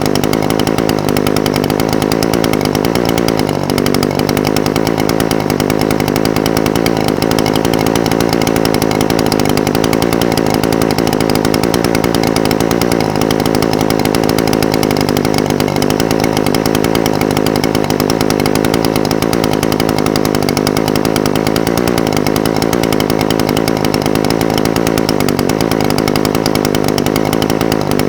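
Echo SRM-420TES brush cutter's two-stroke engine idling steadily, its pitch wavering slightly now and then.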